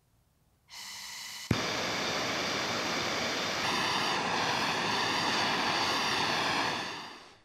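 Hand-held MAPP gas torch: gas hisses as the valve opens, the torch lights with a sharp click about a second and a half in, then burns with a steady, loud hiss while the flame heats a branding iron, fading out near the end.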